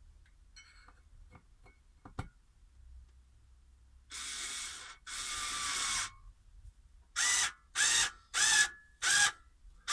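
Cordless drill driving a screw into a wooden panel: two runs of about a second each, then four short bursts to seat the screw, the motor's pitch shifting as it loads. Before that, a few light clicks and a knock as the screw is positioned.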